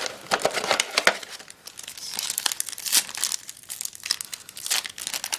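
Foil booster-pack wrapper crinkling as it is handled and opened, a dense run of irregular crackles.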